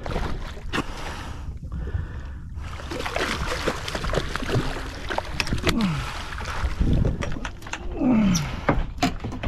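A freshly landed cobia thrashing in a small boat: scattered knocks and thumps on the hull and deck, with a few short, low grunts that fall in pitch.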